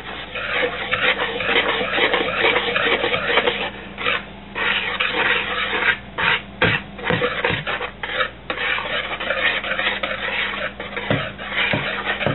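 A whisk stirring dry flour, semolina and salt in a plastic mixing bowl: a steady scratchy scraping with a few short pauses and knocks.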